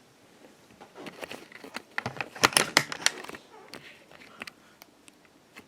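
Handling noise: a flurry of clicks, knocks and rustling, densest and loudest about two and a half seconds in, followed by a few scattered ticks.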